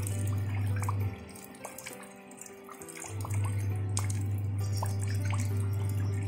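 Water trickling and splashing into shallow water over pebbles, with scattered drips. Under it runs soft background music whose loud, steady low bass note drops out about a second in and comes back about three seconds in.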